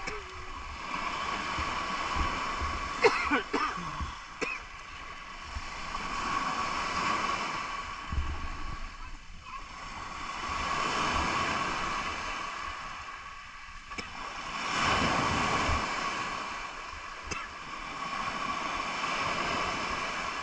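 Sea waves washing onto a pebble beach, swelling and fading about every four seconds. A few light clicks come about three and four seconds in.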